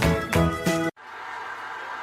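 Upbeat background music with a regular beat that cuts off suddenly about halfway through, leaving a quieter, steady room sound.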